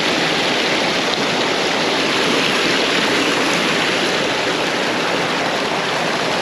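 Small stream running: a steady, unbroken rush of flowing water.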